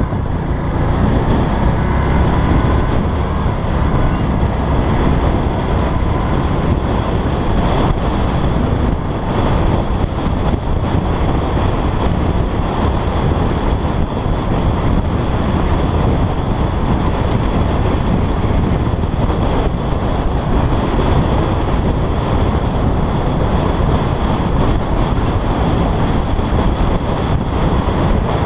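Wind rushing over the microphone of a rider-mounted camera at road speed on a Can-Am Spyder RS-S three-wheeled motorcycle, mixed with the steady running of its V-twin engine. The sound stays loud and even, with no shifts or revving.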